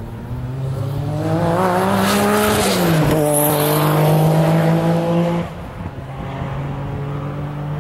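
Noble M12 race car's twin-turbo V6 under hard acceleration. Its note climbs for the first couple of seconds, drops sharply about three seconds in, holds steady at the loudest point, then cuts off about five and a half seconds in. A lower, quieter engine note carries on after.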